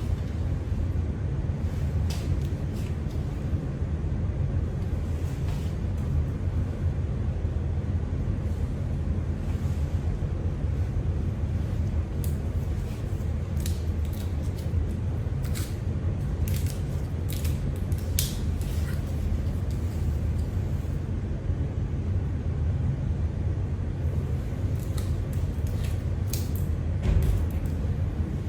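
A steady low hum, with scattered light clicks and ticks from acupuncture needles being handled and placed.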